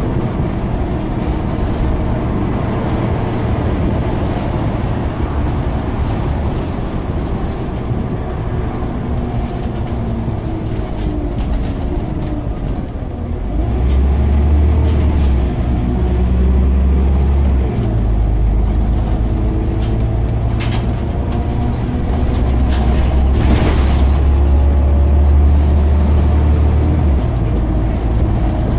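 Scania OmniCity single-deck bus under way, heard from inside the saloon: the diesel engine runs over road noise. The low engine drone grows louder twice as the bus pulls harder, and a couple of short knocks or rattles come in between.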